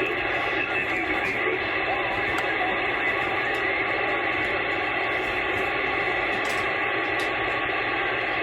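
CB radio receiver hissing steadily with the squelch open: band static on the 11-metre band between transmissions, with any distant skip stations lost in the noise.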